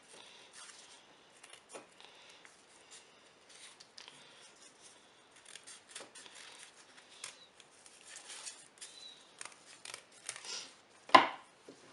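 Scissors snipping through several layers of fan-folded paper in a series of short, irregular cuts, with one louder, sharper click near the end.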